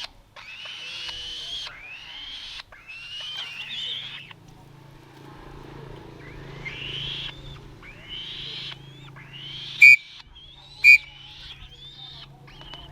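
Hungry young falcon giving a series of rising, wailing begging calls, each about a second long, with two short, loud, shrill notes about a second apart near the end.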